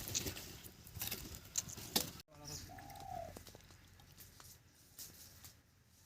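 Light scattered clicks and knocks, then, after an abrupt cut, a single short bird call that rises and falls, about three seconds in.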